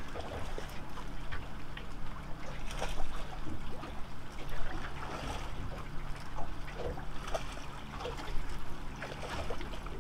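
Small waves lapping and splashing against the boat's hull, with scattered small knocks and clicks.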